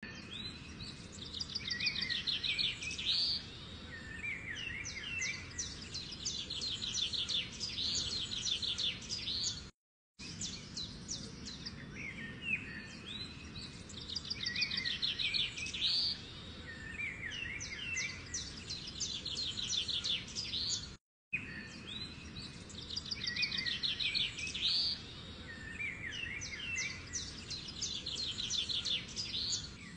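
A looped recording of birdsong: small birds chirping and singing rapid high trills over a low background hiss. The same stretch repeats about every ten seconds, cutting out briefly between repeats.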